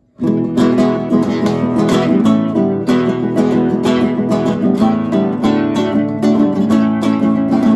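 Kremona F65 nylon-string classical guitar strummed in a steady rhythm, starting a moment in, with its HyVibe System-1 actuator adding the Vintage effect through the guitar's body. With the system level turned down, the effect is working properly again.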